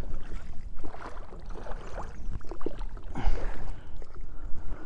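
A one-man pontoon boat being rowed: oar blades swishing and splashing through the water, with scattered short knocks from the oars and frame. Wind rumbles low on the microphone throughout.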